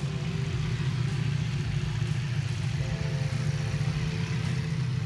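Ducati Multistrada V4 motorcycle's V4 engine running steadily at low revs as the bike is ridden at walking pace through an obstacle course.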